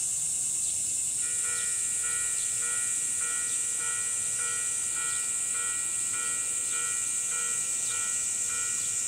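Railway level crossing alarm starting about a second in: an electronic two-tone bell ringing about twice a second, the warning that a train is approaching. Under it, a steady high sizzle of summer cicadas.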